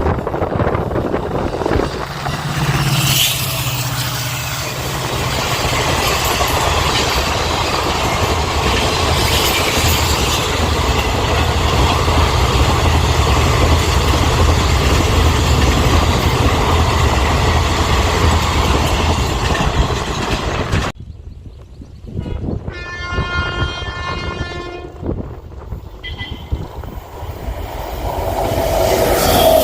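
Indian Railways trains of ICF coaches passing: a steady loud rumble of wheels and locomotive with a low engine tone, and a horn blast about three seconds in. The sound cuts off suddenly about two-thirds of the way through, and another train's horn sounds for a couple of seconds as a chord of high tones, with the rumble of the next train building near the end.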